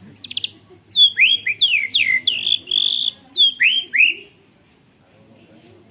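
White-rumped shama (murai batu) singing a canary-style song: a short rapid trill, then a run of loud downward-sweeping whistles and rolled notes lasting about three seconds, which stops a little after four seconds in.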